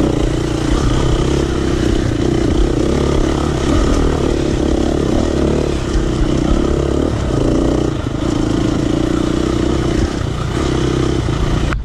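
Dirt bike engine running steadily while riding along a dirt trail, its note wavering up and down for a few seconds near the middle.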